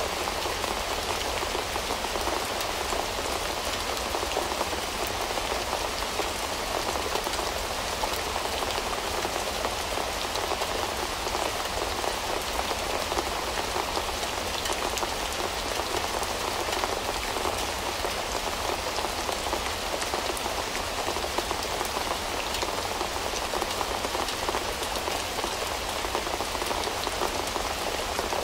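Steady rain falling on a window, a constant hiss dotted with many small drop ticks.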